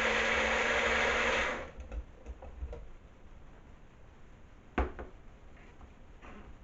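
Magic Bullet blender motor running as it blends strawberries, Greek yogurt and ice, then stopping a little under two seconds in. A single sharp knock follows about five seconds in.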